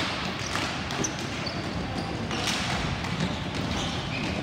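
Ball hockey play: sharp clacks of sticks and the ball on the hard playing surface, with a loud hit at the start and another about two and a half seconds in, over a steady background din.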